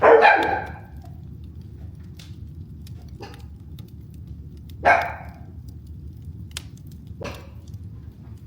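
Wood fire burning with a steady low rush and scattered small crackles. Two loud short dog barks break in: the loudest right at the start, a second about five seconds in, with fainter ones between.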